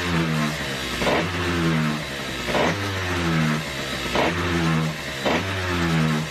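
Zip scooter engine turning over on its electric starter in repeated bursts, roughly every second and a half. Each burst opens with a sharp knock and is followed by a short steady whir.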